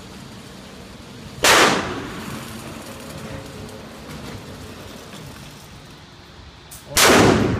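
Two pistol shots from a Glock G21 in .45 ACP, about five and a half seconds apart, each a sharp crack with a short echoing tail.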